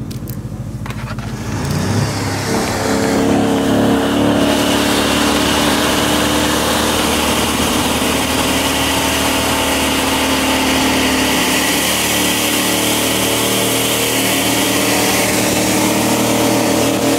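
V8 car engines, a Ford Mustang 5.0 among them, pulling hard side by side in a highway roll race, with wind and road noise. The engine sound jumps louder about two seconds in, then holds a steady pull.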